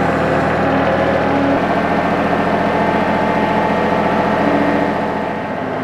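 Engine of a John Deere compact tractor with a front loader running steadily, its note shifting about a second and a half in and again near the end as it moves a pallet of parts on its forks.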